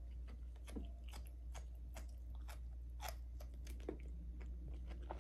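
A person chewing a mouthful of cooked asparagus: a run of faint, irregular crunchy clicks, a few a second, over a low steady hum.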